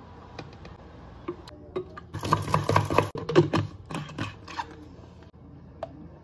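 Light clicks of a spoon and utensils on plastic containers. About two seconds in, a drink is shaken hard in a capped plastic shaker bottle for about a second and a half, a quick sloshing rattle. A few sharp knocks follow as the bottle is handled and set down.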